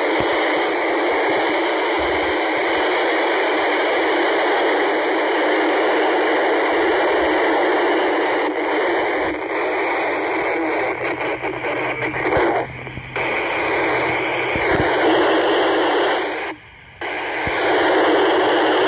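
VHF FM radio receiver hissing with open-squelch static while tuned for the International Space Station's downlink, no voice coming through yet. The hiss cuts out briefly twice near the end.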